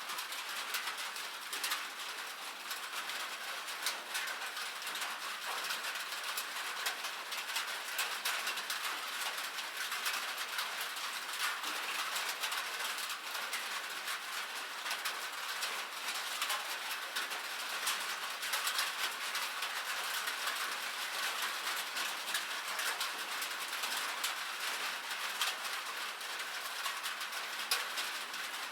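Steady rain on a cabin roof: a dense patter of individual drops ticking over a continuous hiss, with no thunder.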